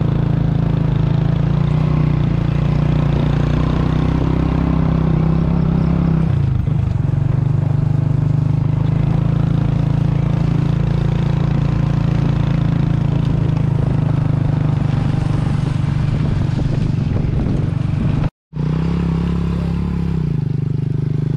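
Small underbone motorcycle engine running steadily while riding over a rough dirt track, with rattling from the bike. The engine note dips briefly about six seconds in, then picks up again, and the sound breaks off for a split second near the end.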